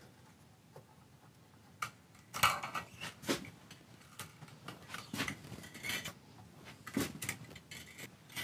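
Steel strings of a Taylor Solidbody electric guitar being slackened and pulled out: irregular metallic clinks, rattles and scrapes that start about two seconds in.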